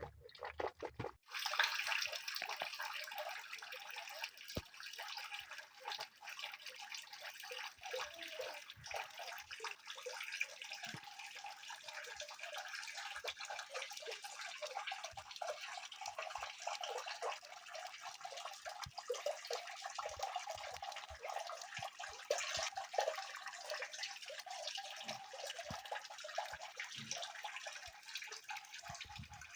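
Steady splashing, trickling water that starts about a second in, full of small ticks and drips.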